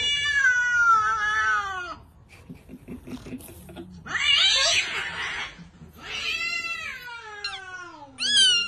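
Cats meowing and yowling: a long drawn-out meow falling in pitch, a harsher, noisier cry about four seconds in, then another long falling meow and a short call near the end.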